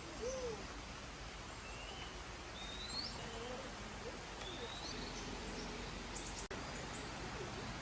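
Faint outdoor ambience: scattered short chirping calls, several rising in pitch, over a steady low hiss, with a brief patter of clicks about six seconds in.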